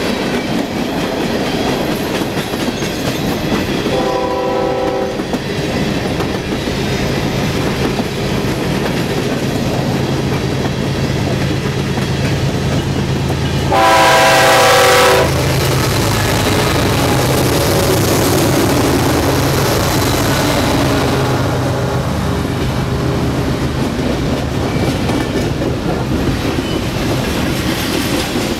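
Freight trains rolling past close by, steel wheels clacking over the rail joints under empty coal hoppers and double-stack container cars, with the low drone of the diesel locomotives' engines beneath. A locomotive horn sounds briefly about four seconds in, then again louder for about a second and a half as the lead BNSF locomotive of the stack train passes about halfway through.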